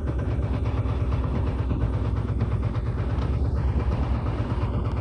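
A boat's engine running steadily: a low, even, pulsing rumble.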